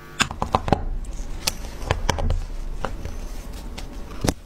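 Scattered clicks and taps of a corroded old Tissot wristwatch being handled in gloved fingers and knocked against a work surface, with one louder knock near the end.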